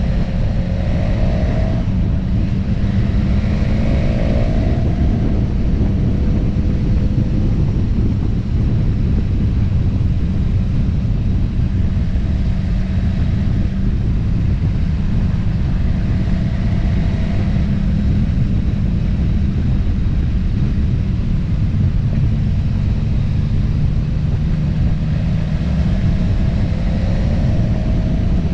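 Steady low rumble of a vehicle engine and road noise while under way, with a few short rising tones as the engine picks up.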